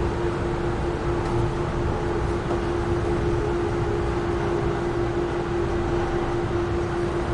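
Amtrak Northeast Regional passenger train running along the track: a steady rumble with a constant low hum throughout.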